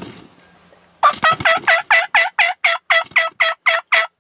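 Wild turkey calling: a steady run of about a dozen loud, evenly spaced yelps, about four a second, starting about a second in.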